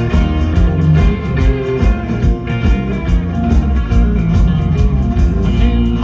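Live country band playing the instrumental intro of a song: guitar over bass with a steady beat, before the vocals come in.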